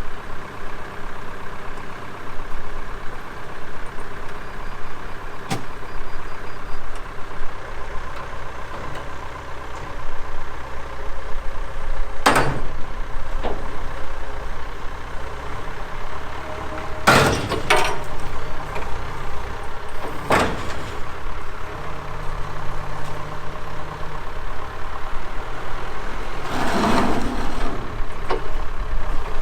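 Diesel tractor engine running steadily, with several sharp clunks about 12, 17, 18 and 20 seconds in and a longer rattle near the end.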